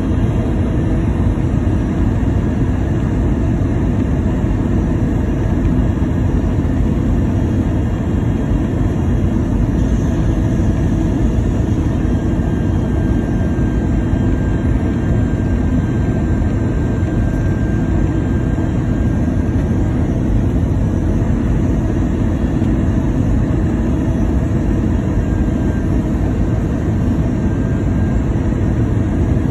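Steady jet cabin noise inside an Airbus A319: an even low rumble of engines and airflow, with a faint steady high whine.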